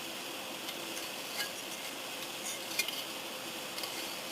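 A few light clicks and taps of small plastic model-kit parts being handled, over a steady background hiss.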